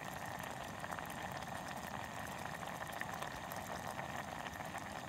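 A meal boiling in a collapsible silicone camping pot on a gas stove: steady bubbling and fine popping over the hiss of the burner.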